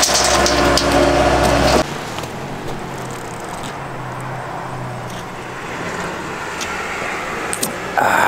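A loud engine running steadily, cut off abruptly about two seconds in, followed by a quieter, steady low vehicle hum.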